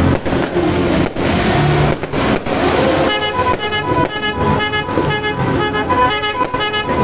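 Aerial fireworks banging and crackling overhead. From about three seconds in, a horn joins, sounding rapid short toots about three times a second.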